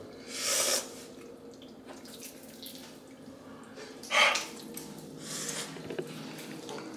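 A man breathing out and sucking in air sharply through his mouth, reacting to spicy food: a short hissing breath just after the start and a stronger one about four seconds in, over a faint steady hum.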